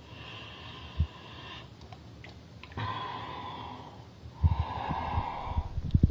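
Breathing in and out through a snorkel tube: three separate airy breaths, each lasting about a second. Low bumps join in from about four and a half seconds in.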